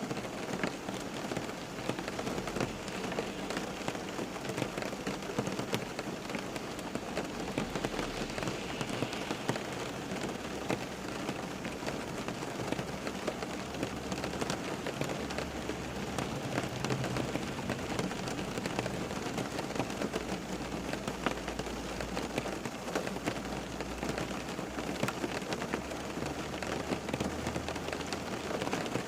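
Steady rain falling and pattering on a surface, with many separate drops ticking through the constant hiss and a faint low rumble that comes and goes underneath.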